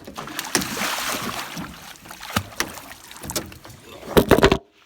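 Knocks, clicks and scraping on a drift boat, with a cluster of louder bumps about four seconds in; the sound cuts off abruptly near the end.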